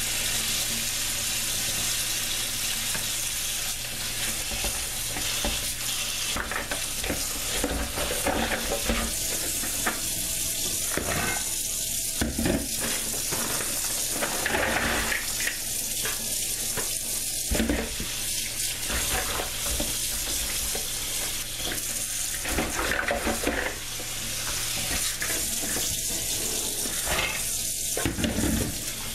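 Kitchen tap running steadily into a stainless steel sink while raw green peanuts are rinsed and stirred by hand in a plastic colander, with scattered knocks and clatters of shells against the colander and sink.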